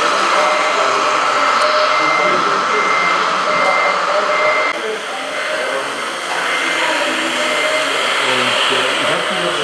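High, steady whine from a radio-controlled construction model's small electric motor, which cuts off about five seconds in, while a model truck's reversing beeper repeats its short beeps. People chatter in the background.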